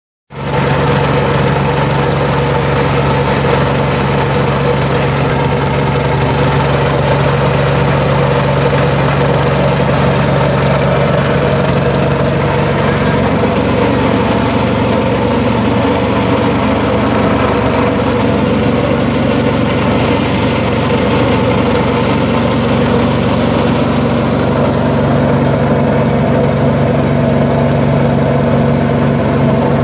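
Small boat engine running steadily while the boat motors along. Its constant hum changes pitch slightly about halfway through.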